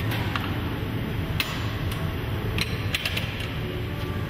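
Steady low hum of the glassworks' furnaces and blowers, with several sharp metallic clicks and clinks as a steel oven door and metal tools are handled.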